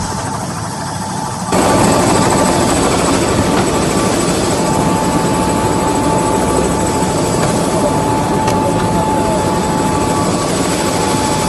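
Military helicopter's turbine and rotor running loud and steady, heard from inside the cabin at the open door, with a steady high whine over the noise. It gets louder about a second and a half in.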